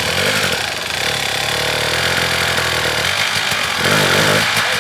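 Two-stroke dirt bike engine running and revving, its pitch held steady for a couple of seconds, then blipped up and down near the end.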